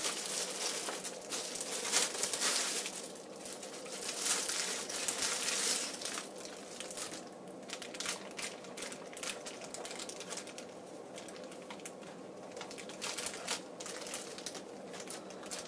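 Clear plastic bag crinkling as it is handled and pulled off a clock radio, with many small sharp crackles. The crinkling is louder over the first six seconds or so, then softer.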